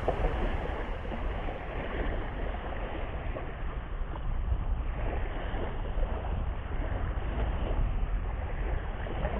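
Small waves washing up on a sandy beach, with wind rumbling on the microphone.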